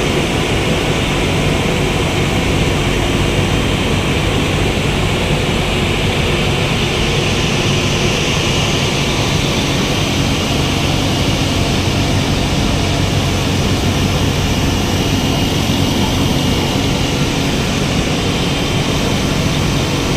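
Electric motor running steadily at constant speed, with a low hum and a continuous higher whirr, run so that its bearing can be judged by ear.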